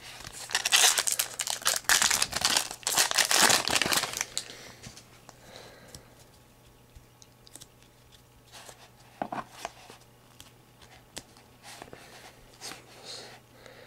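Foil trading-card pack being torn open, its wrapper crinkling loudly for the first four seconds or so. Then quieter, with scattered soft clicks as the cards are slid and flipped by hand.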